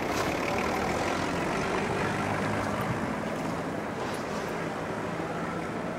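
A steady engine hum under a haze of open-air harbour noise.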